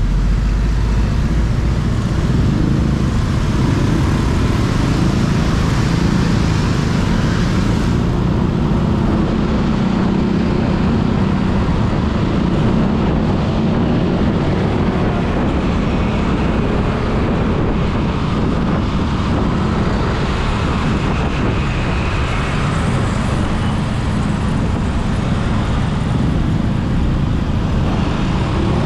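Road traffic heard from a motorcycle riding in dense city traffic: a steady, unbroken mix of engine and traffic noise from the surrounding scooters and cars.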